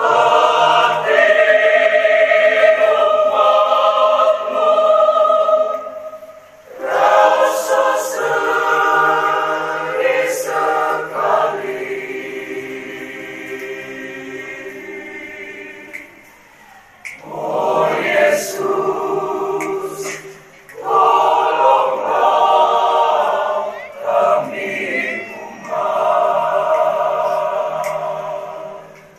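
A group of voices singing a hymn together, in sung phrases separated by short pauses.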